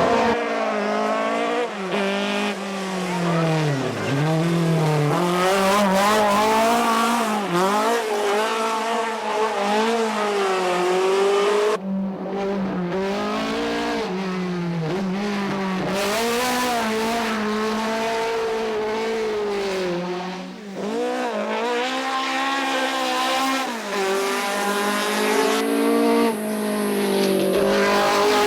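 Ford Escort Mk2 race car's BDA twin-cam four-cylinder engine running hard under racing load, its pitch climbing and dropping again and again as it revs up and comes off the throttle.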